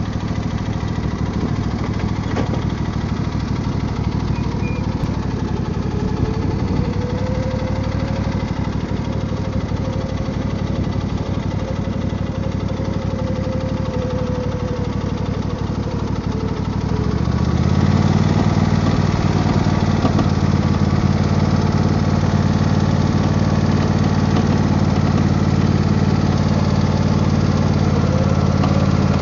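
Husqvarna YTH24V48 riding mower's V-twin engine idling, then revving up about 17 seconds in and running steadily at higher speed. A rattling noise sets in while it runs; the owner thinks it sounds like a bearing going out, though the grease points have all been greased.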